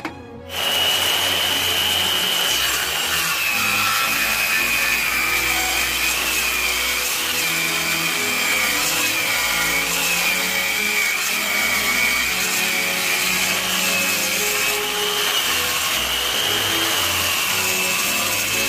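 Circular saw running and cutting wood, starting about half a second in. Its high whine sags and recovers again and again as the blade slows under load in the cut.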